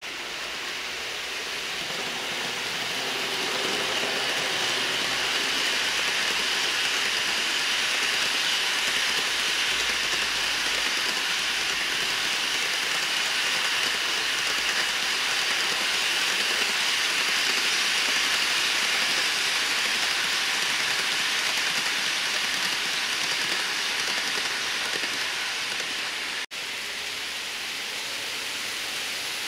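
N-scale model freight train running on track: a steady hiss of small metal wheels rolling on the rails, growing louder as the container wagons pass and then easing. After a cut near the end it continues more quietly.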